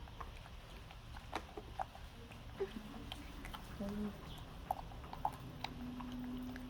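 Baby monkey eating: soft wet clicks and smacks of chewing. A brief low hum comes just before the middle and a longer steady hum near the end.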